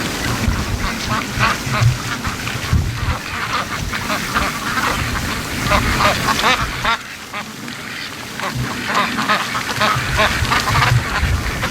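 A flock of domestic ducks quacking over and over, many calls overlapping, while strong wind gusts buffet the microphone with a low rumble that eases briefly about two-thirds of the way through.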